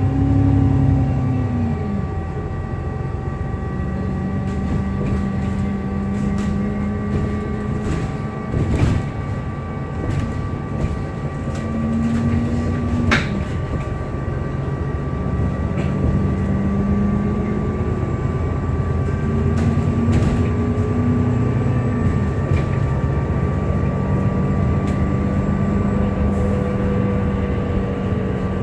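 Alexander Dennis Enviro 400MMC double-decker bus running, heard from on board, its engine note rising and dropping several times as it pulls away and changes speed. Over it runs a steady high-pitched whirring whine, the strange whirring noise this bus is known for, with occasional rattles and clicks from the body.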